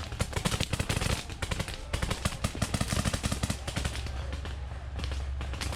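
Paintball markers firing rapid strings of shots, closely spaced cracks with several markers overlapping. The firing thins out about two-thirds of the way through and picks up briefly again near the end.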